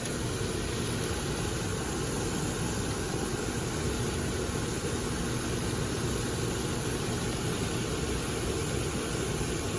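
Pot of water and herbs boiling hard on the stove: a steady rumbling, hissing noise.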